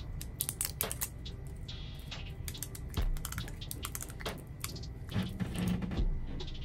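Small plastic cosmetic containers and their packaging being handled and opened, giving a run of light, irregular clicks and crinkles.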